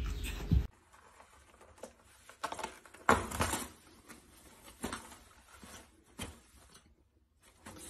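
A steady low hum cuts off abruptly less than a second in. Then soft, scattered rustling and tapping of a toilet paper roll being pawed and pulled by a kitten's claws, with the loudest rustle about three seconds in.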